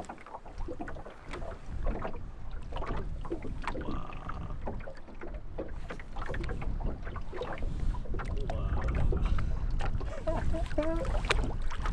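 Wind rumbling on the microphone and water lapping against a small boat's hull, with scattered knocks and clicks from gear being handled on board.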